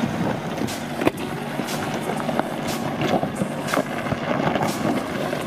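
SsangYong Rexton G4 SUV engine running under load as it climbs a loose gravel track, with tyres crunching over stones. Sharp clicks of stones popping under the tyres are scattered throughout, the loudest about a second in.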